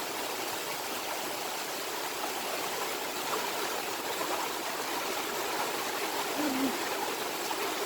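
Rain falling steadily, a constant even hiss.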